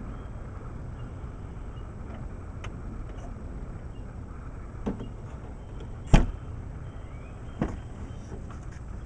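Knocks and bumps inside a car's cabin as a toddler moves about the seat: a light knock about five seconds in, a loud thump just after six seconds, and another knock about a second and a half later, over a steady low rumble.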